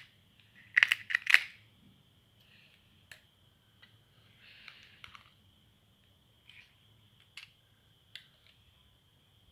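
Crisp fried golgappa (pani puri) shells being cracked open with the fingers: a quick cluster of sharp cracks about a second in, then single crackles now and then and a short rustle of crumbling shell around five seconds in.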